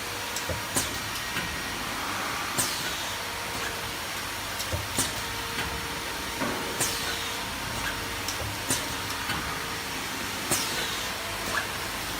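Plastic L-bar sealer machine running with a steady mechanical hiss and scattered clicks. A sharp high sound with a falling tail recurs about every four seconds as it cycles.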